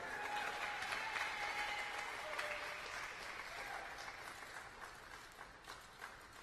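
Audience applauding, the clapping thinning out and fading away over a few seconds.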